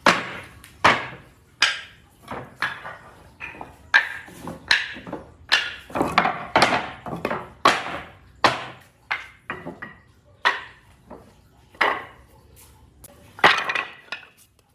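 An irregular series of sharp knocks of a tool striking wood, about one to two a second, each with a short ring after it.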